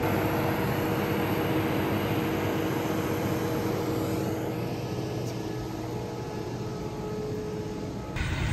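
Steady drone of parked jet aircraft and ground equipment on an airport apron: a low rumble with several held tones and a faint high whine.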